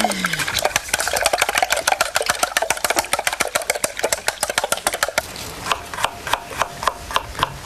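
Rapid, dense clicking knocks for about five seconds, then a kitchen knife chopping garlic on a wooden board at about three chops a second.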